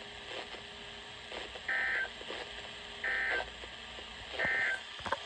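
Three short bursts of EAS/SAME digital data tones from NOAA Weather Radio, about 1.3 seconds apart: the buzzy end-of-message code that closes the weekly test broadcast, heard through a weather radio receiver.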